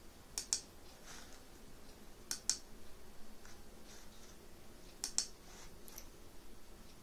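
Computer mouse clicking three times, each a quick pair of sharp clicks, spaced two to three seconds apart.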